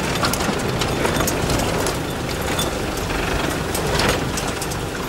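Land Rover Defender driving off-road, heard from inside the cabin: the engine runs steadily under a constant noise of the moving vehicle, with many small knocks and rattles from the body.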